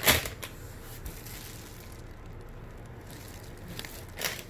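Packaging rustling as items are handled in a cardboard delivery box: a short rustle at the start and another about four seconds in, with a faint low hum between.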